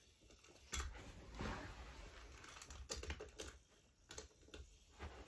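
Scattered clicks and knocks of a battery-powered Mattel Thomas toy engine being handled on wooden train track. There is one sharp knock about three-quarters of a second in and a cluster of clicks around the middle.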